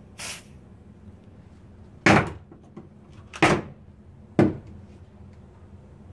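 Short bursts of aerosol smoke-tester spray from a Sabre can in a pole-mounted applicator cup, fired at a smoke detector, each with a clunk as the applicator is pushed up to trigger the can. One softer burst comes at the start, then three louder ones about two, three and a half, and four and a half seconds in.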